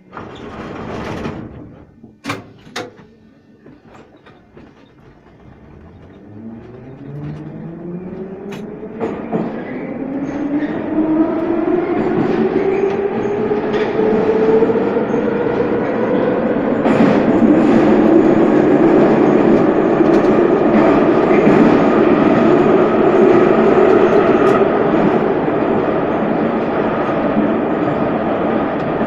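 Metro train pulling away from a station: a brief burst of noise and two sharp clicks, then the traction motors' whine rising steadily in pitch as the train accelerates, settling after about halfway into loud, steady running noise of the train at speed on the rails.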